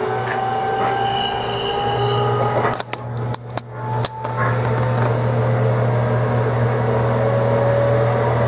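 JR Kyushu 813 series EMU heard from inside the car, its Toshiba GTO-thyristor VVVF inverter and traction motors whining over a steady low hum and wheel noise. The whine rises slowly in pitch as the train gains speed. It breaks up briefly about three seconds in, then a rising tone carries on.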